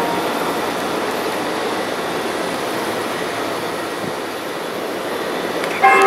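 Steady rushing city noise, something like a passing train, fills a pause in the church bells; the bells strike again right at the end.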